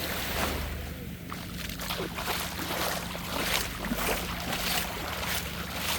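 Seaside wind buffeting the microphone over the wash of surf, in uneven gusts, with a steady low hum underneath.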